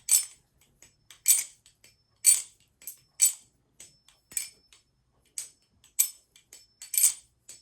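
Baliplus Orca V2 clone balisong being flipped open and closed: sharp metallic clicks as the handles and blade knock together, about one loud click a second with fainter ticks between. The opening clicks are very metal sounding.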